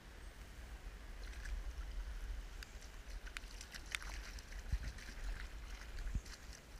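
Water splashing and sloshing as a small fish is scooped into a landing net, over scattered pattering of raindrops on the river surface. Low rumble of handling on the phone's microphone, with a couple of low knocks near the end.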